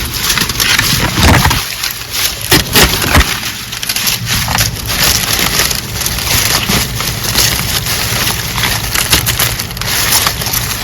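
Hand pruner cutting through a thick sugarcane stalk near the ground: crunching, splintering snaps, the sharpest in the first few seconds, over a steady crackling rustle as the cane is worked.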